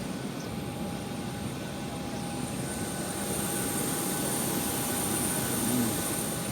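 Steady jet aircraft engine noise: an even rush with faint constant whining tones running through it.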